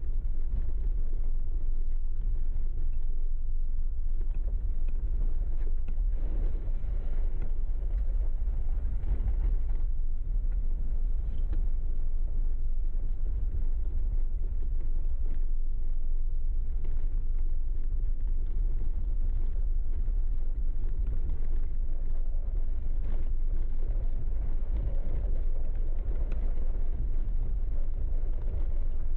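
Jeep driving along a dirt trail, a steady low rumble of engine and tyres.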